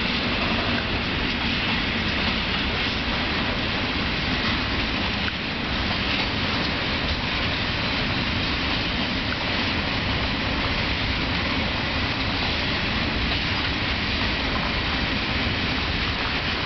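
Freight train of covered sliding-wall wagons rolling past at a steady speed, a continuous noise of steel wheels running on the rails.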